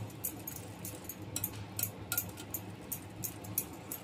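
Metal wire whisk beating thick besan (gram-flour) batter in a glass bowl, its wires clinking against the glass about three times a second.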